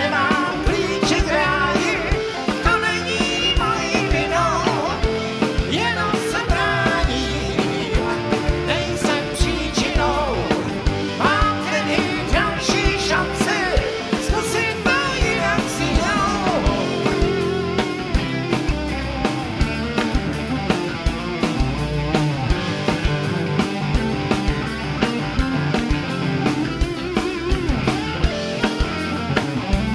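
Rock band playing live, drum kit keeping a steady beat under electric guitars.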